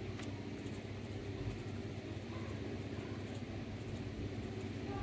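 Pencil scratching faintly on paper while drawing, over a steady low mechanical hum in the room.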